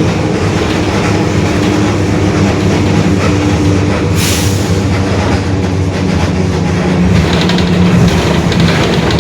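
Mercedes-Benz OF-1721 bus under way, its diesel engine running steadily with a droning tone from a growling differential. A brief hiss comes about four seconds in, and there is light rattling near the end.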